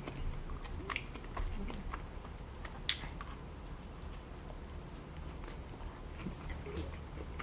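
Close-miked chewing of sushi: soft, wet mouth clicks and smacks at irregular intervals, with one sharper click about three seconds in.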